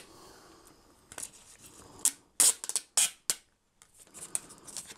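Protective plastic film being peeled off an acrylic lamp panel and handled: a series of short, sharp crackles with brief pauses between them.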